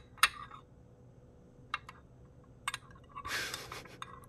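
A metal butter knife clinking against a small glass jar: one sharp clink just after the start, a few light ticks, then about a second of scraping as it scoops jam from the jar near the end.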